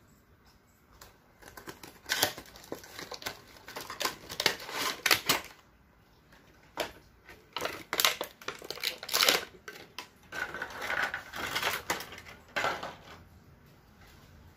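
Cardboard charger box and its paper insert handled and opened: irregular bursts of rustling, scraping and sharp clicks of cardboard as the white wall charger is worked out of its tray.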